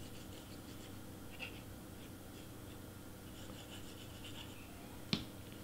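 Faint scratching of a Bearly Art Glue bottle's nozzle tip dragged along cardstock tabs as glue is squeezed on, with one sharp click about five seconds in.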